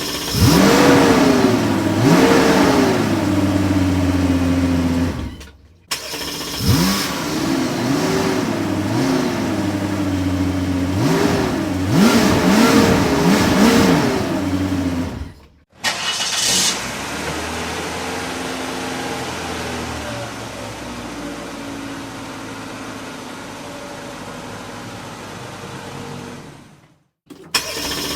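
Car engine revved repeatedly, its pitch climbing and dropping with each blip of the throttle, in two separate takes with short breaks of silence. Then a steadier running engine takes over with a brief hiss at its start and slowly fades.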